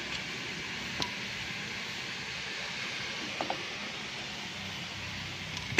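A few light metallic clicks as a drum-brake return spring is worked with brake-spring pliers against the brake shoe, over a steady background hiss. The sharpest click comes at the very end.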